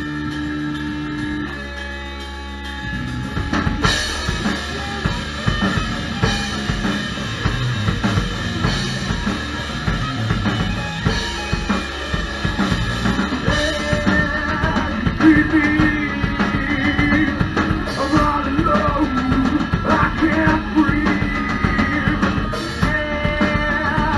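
Live rock band in a small room: electric guitar and bass guitar hold ringing chords for the first few seconds, then the drum kit comes in with a cymbal crash about four seconds in and the full band plays a driving rock groove.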